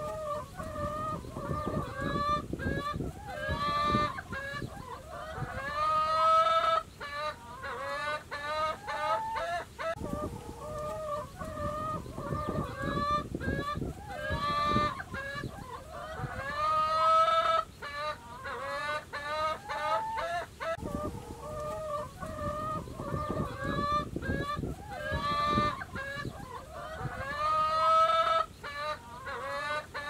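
A flock of domestic hens clucking and cackling, with many overlapping calls. Louder drawn-out calls come about every eleven seconds.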